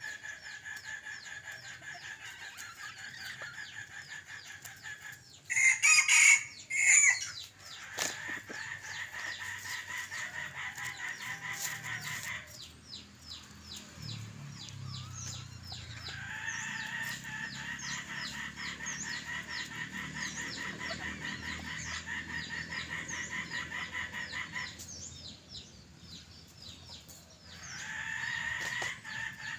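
Long stretches of a steady, rapidly pulsing insect drone that stops and starts several times, with a short, loud burst of rooster calls about six seconds in.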